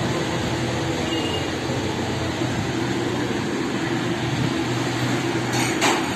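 Steady mechanical hum with a constant rushing noise, with a couple of sharp clicks near the end.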